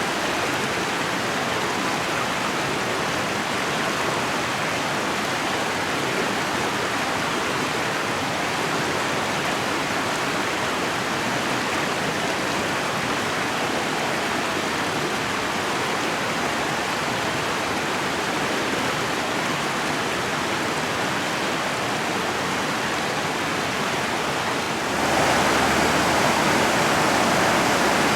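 Mountain river flowing steadily over rapids, a constant water noise. About 25 seconds in it becomes louder and brighter.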